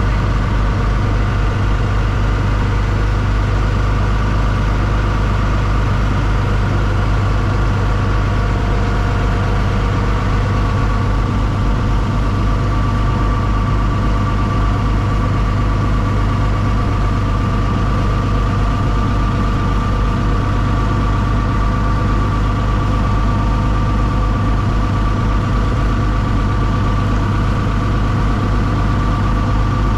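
Long-tail boat engine running steadily under way, a loud, even drone with a thin steady whine above it.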